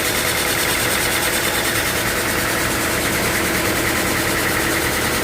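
Sawmill machinery running steadily: a loud mechanical drone with a fast, even rattle and a strong high hum.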